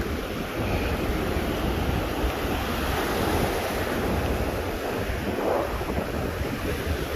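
Ocean surf breaking and foamy wash running over the sand at the waterline, with wind buffeting the microphone.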